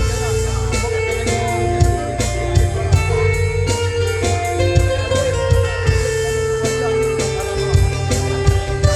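Instrumental band music: a guitar-led passage with held melody notes over a steady bass line and a regular drum beat.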